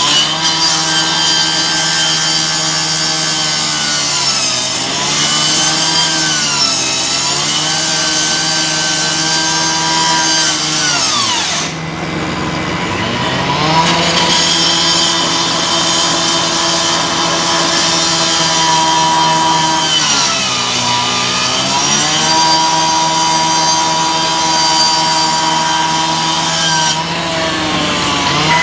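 Gas-powered two-stroke rescue saw running at high revs. Its pitch sags twice for a second or two, and near the middle it drops to a low idle for about two seconds before revving back up.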